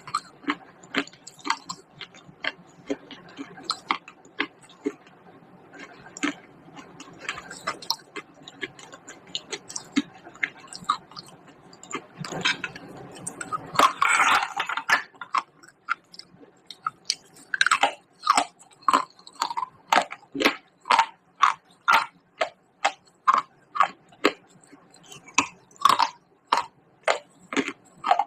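Pieces of baked clay pot being bitten and chewed close to the microphone: sharp, dry crunches. They come irregularly at first, with a longer grinding crunch about halfway through, then a steady run of about two crunches a second.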